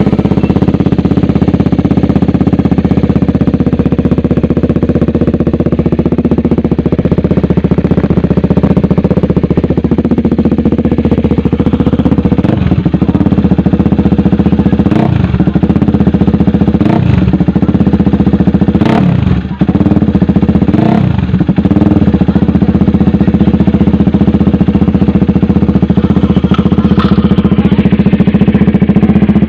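KTM Duke 390's single-cylinder engine idling through a newly fitted SC Project racing exhaust. Starting about twelve seconds in, it is blipped several times, each rev rising quickly and falling back to idle.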